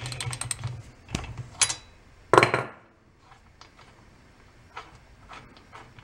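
A ratchet and socket clicking as they loosen a chainsaw's spark plug, with a loud metallic clank about two and a half seconds in. Faint light ticks follow as the plug is spun out by hand.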